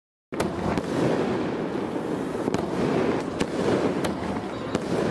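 Fireworks crackling densely, with sharp pops scattered through, starting suddenly out of total silence.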